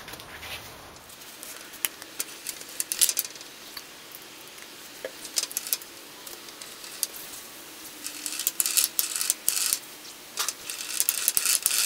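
Scattered light clicks and taps from handling a plastic squeeze bottle of thin grease and the gears of an open riding-mower transaxle case. The clicks come in small clusters with quiet gaps between.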